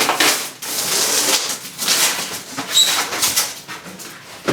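Rustling and scraping strokes as the garage door insulation kit's foam panels are handled and cut, with a brief high squeak near three seconds in.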